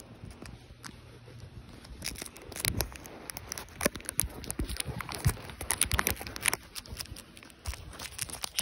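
Duct tape pulled and torn off the roll, crackling and rustling right against a phone's microphone, with irregular handling clicks as the phone is taped on. The tearing and crackling get denser and louder about two seconds in.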